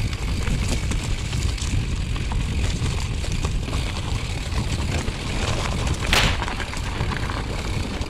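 Mountain bike ridden over a rough dirt trail: wind buffeting the microphone with tyre crunch and scattered clicks and rattles. A brief louder rush comes about six seconds in.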